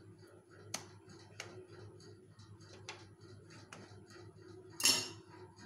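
Chef's knife cutting through set white-chocolate fudge and knocking on a plastic cutting board: four sharp clicks spread over about four seconds, then a louder, brief scrape near the end. A faint, even ticking runs underneath.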